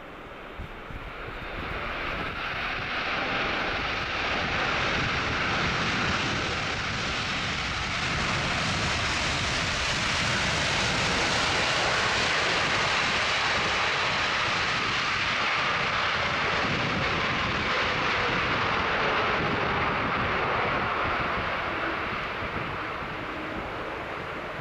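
Boeing 747-8 freighter's four GEnx turbofans passing on landing approach. The jet noise builds over a couple of seconds, holds loud through the middle and slowly fades, with a faint falling tone about two-thirds in.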